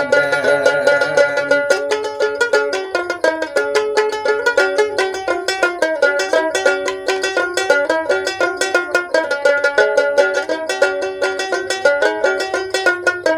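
Instrumental break in a folk song: a long-necked plucked string instrument picking a quick, repeating melody of rapid notes, with no singing.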